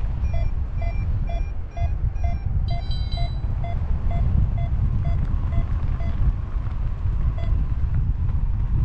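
Paraglider variometer beeping, a short tone repeating about twice a second, the climb signal. It stops after about seven seconds. Heavy wind rumble on the microphone runs under it and is the loudest sound.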